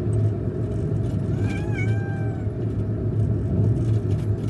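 A cat meows once, a drawn-out call about a second long that rises and then levels off, over a steady low rumble.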